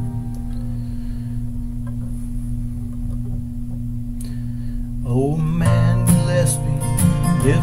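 Acoustic guitar music in a country song, quiet at first over a steady held low note, then fuller and louder from about five seconds in.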